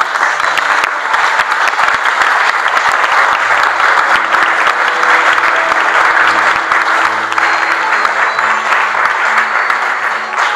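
An audience applauding loudly and steadily, with music playing softly underneath.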